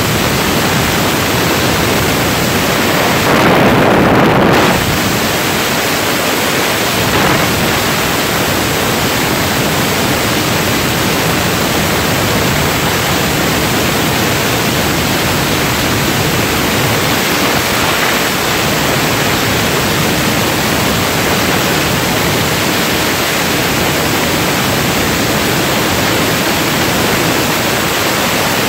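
Steady rush of wind over the microphone at road speed, an even hiss with no distinct engine note. There is a brief louder gust about four seconds in.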